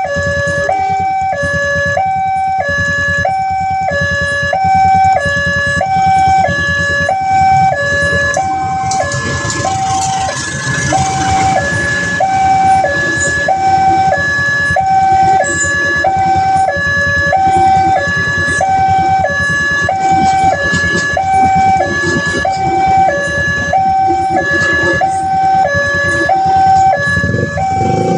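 Railway level-crossing warning siren sounding a steady two-tone alternation, high then low, about one full cycle a second. A broad rushing noise joins under it about nine seconds in.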